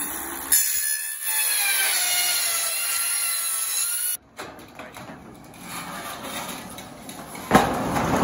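Cordless circular saw cutting through a steel roofing panel: a loud, high-pitched metallic screech and whine that sags in pitch under load for about four seconds, then stops abruptly. Afterwards comes rougher scraping and rattling of the sheet metal, with a sharp bang near the end as the panel is handled.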